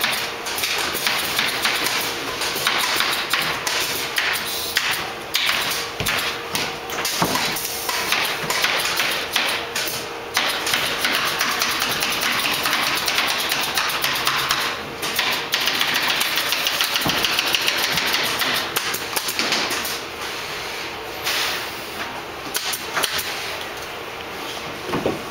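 Canvas stretching machines working in a production shop: a dense, irregular run of rapid mechanical clicks and taps over a faint steady hum.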